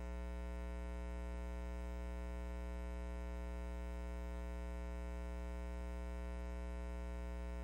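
Steady low electrical hum with a buzzy stack of overtones, unchanging in pitch and level.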